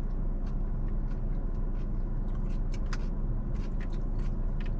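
Steady low hum of a car idling, heard from inside the cabin, with scattered small clicks throughout.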